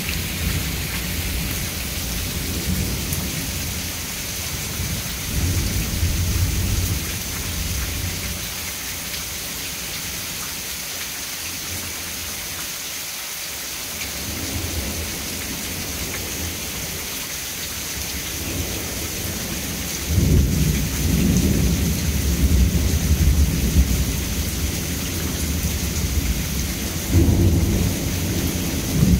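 Steady rain falling through a thunderstorm, with rolling thunder. A low rumble comes about six seconds in. A longer, louder rumble builds about two-thirds of the way through and swells again near the end.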